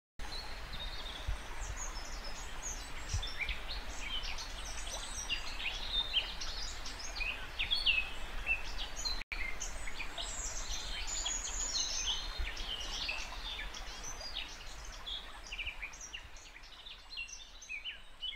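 Many birds singing and chirping at once, a busy spring woodland chorus of short high calls and trills over a steady background hiss. The sound cuts out for an instant about halfway through, and grows fainter near the end.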